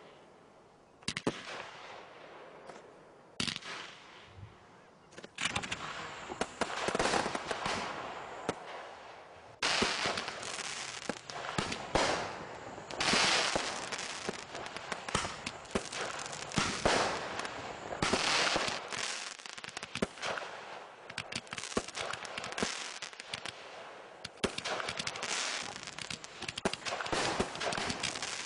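Fireworks display: a rapid run of sharp bangs from shells bursting overhead, mixed with dense crackling. The firing is sparse at first, then gets busier and louder about five seconds in and again about ten seconds in.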